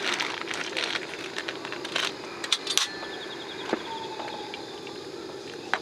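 Scattered light clicks and knocks of small objects being handled, over a steady hiss.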